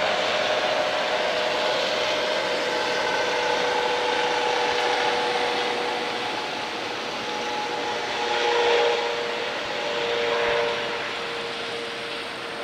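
Steady road traffic noise from passing vehicles, a rushing tyre-and-engine hum that swells twice near the end as vehicles go by.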